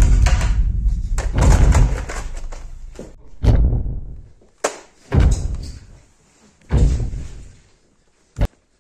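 A series of about five loud, heavy booms, one every one to two seconds, each fading away over about a second, with a couple of short sharp clicks in between.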